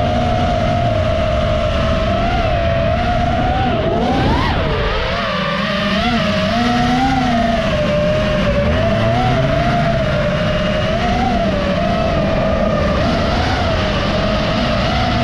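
FPV racing quadcopter's motors whining steadily, the pitch wavering with the throttle and sweeping quickly up and back down about four seconds in, over the lower rumble of rallycross race cars.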